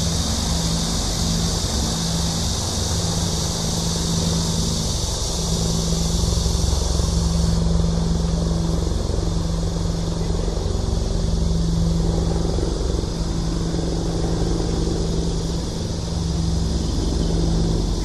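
Cicadas shrilling in a steady high chorus that drops off sharply about seven and a half seconds in, over a steady low machine hum.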